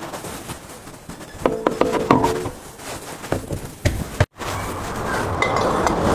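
Metal knocks and clinks, a cluster of them about one and a half seconds in and a few more near four seconds, some ringing briefly. After a sudden break, a steady rushing noise follows.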